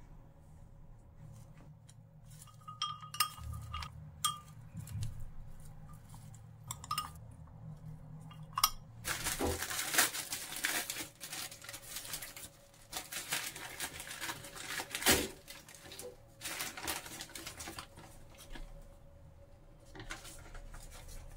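Utensil clinking against a glass mixing bowl for several seconds, then a paper bakery bag crinkling and rustling as a ciabatta loaf is drawn out of it, with a few light knocks near the end.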